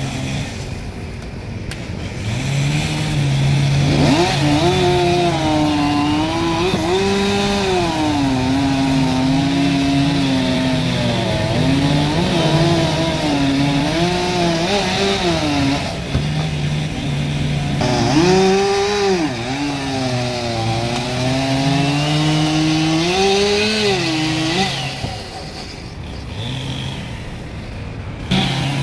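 Two-stroke chainsaw cutting wood: the engine revs up twice, its pitch wavering up and down as the chain bites, and falls back toward idle between and after the cuts.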